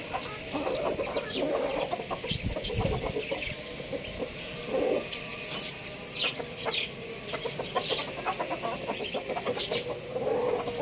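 Chickens clucking: many short, repeated clucks, with scattered sharp clicks.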